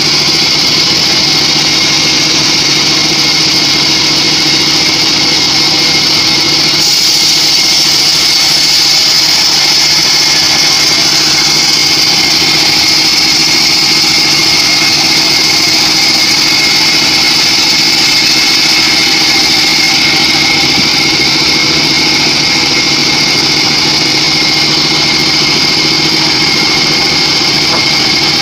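Homemade band sawmill running, its blade cutting through a teak log: a loud, steady mechanical whine that turns slightly brighter about seven seconds in.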